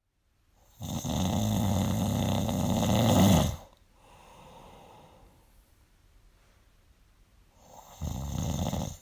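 A person snoring: a long, loud snore lasting nearly three seconds, a much softer breath after it, a pause, then the next loud snore starting near the end. The uploader puts the snoring down to sleep apnea.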